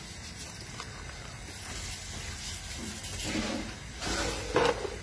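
Raw rice being washed by hand in water in a large aluminium pot: wet swishing and splashing of grains and water against the metal, getting louder in the last couple of seconds.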